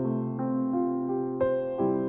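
Soft background piano music: single notes enter one after another, about every half second, each ringing on and fading slowly.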